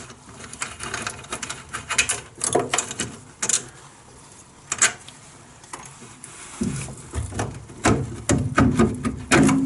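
A screw being undone from a classic Mini's rear light unit and the unit worked loose: scattered clicks, scrapes and knocks of tool and metal parts, busier near the end.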